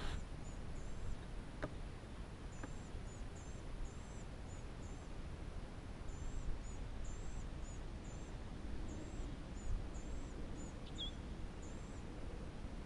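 A small bird singing thin, very high-pitched notes in short repeated phrases with brief pauses between them, over a steady low outdoor rumble.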